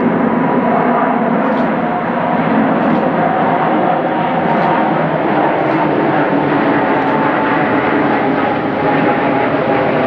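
Airbus A380-861's four Engine Alliance GP7200 turbofans at approach power, a loud steady jet rumble with a faint hum of steady tones as the aircraft passes low overhead with its gear down. Sharp irregular ticks every second or so are big raindrops hitting the camera.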